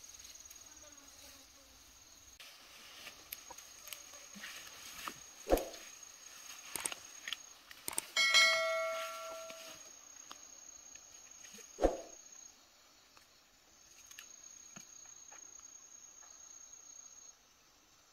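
A thin, steady high insect whine, with a few sharp snaps of brush and stems as plants are picked. About 8 seconds in, a click and a ringing, bell-like chime of about a second and a half: the subscribe-button notification sound effect.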